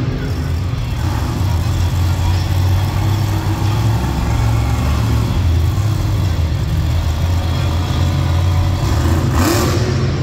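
Monster truck's supercharged V8 engine running loud and steady, with a rise in pitch near the end as it revs.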